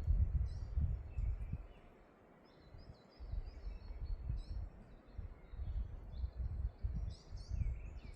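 Wind buffeting the microphone in gusts, easing to a lull about two seconds in, with birds chirping and singing throughout.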